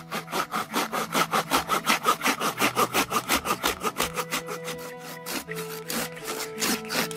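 Wood being sawn by hand in quick, even back-and-forth strokes while shaping a wooden kuksa cup; the strokes ease off after about five seconds.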